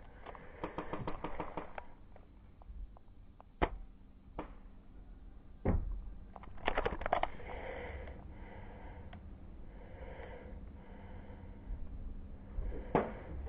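Airsoft gunfire on the field: a fast string of clicks in the first two seconds, then a handful of single sharp cracks, the loudest a little over three and a half seconds in and another near the end.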